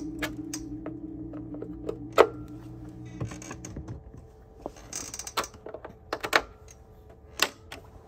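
A held note's echoes from a Binson Echorec 2 tape-less drum echo fading away over the first few seconds, followed by scattered creaks and sharp clicks.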